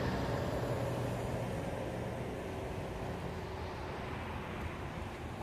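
Steady outdoor background noise with no distinct events, easing down slightly.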